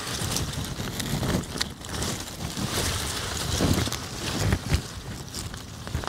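Rustling and crackling of potato foliage and soil as potato plants are gripped and tugged up out of the ground by gloved hands, irregular, with a few louder surges a little past the middle.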